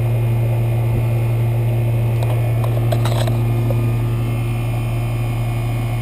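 Central air conditioner's outdoor condensing unit running: a steady low hum from the compressor together with the condenser fan, while the system is being charged with refrigerant. A few faint clicks come about two to three seconds in.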